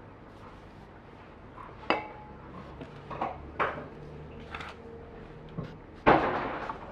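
Handling clinks and knocks as a metal aerosol spray can is moved and set down on a wooden floor: one sharp ringing clink, then several lighter knocks. A louder rough noise follows near the end.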